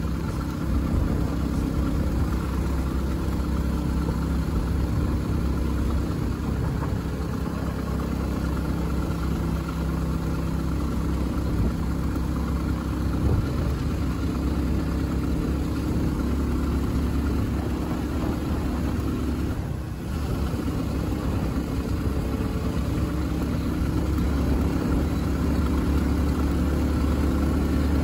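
Engine and road noise of a moving vehicle running steadily, with a brief dip about twenty seconds in.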